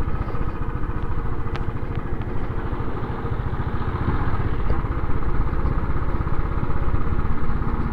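Motorcycle engine running steadily as the bike is ridden, getting a little louder about halfway through.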